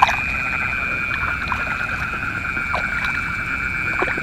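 Steady night chorus of frogs and insects in flooded rice fields, a constant high trilling, with a sharp knock right at the start and a few faint short calls over it.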